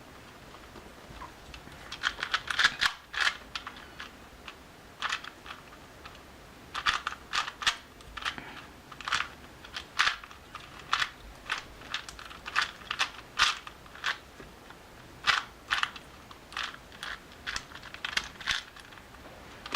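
Cyclone Boys 3x3x3 speed cube being turned during a solve: quick runs of plastic clicks and clacks as the layers snap round, starting about two seconds in and coming in irregular bursts with short pauses. The cube is set very loose and needs tensioning.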